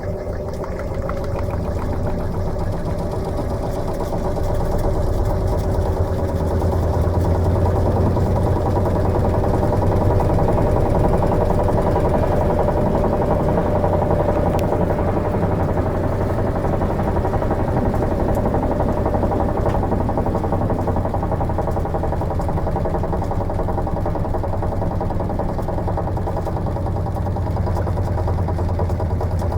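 Electrolux LM13Q top-load washing machine running a cycle: a steady motor hum that grows louder over the first several seconds, then holds.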